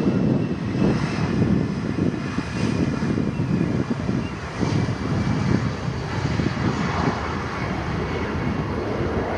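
Twin jet engines of an Airbus A320-family airliner at takeoff power, a loud, low, rough rumble that holds steady through the takeoff roll and rotation.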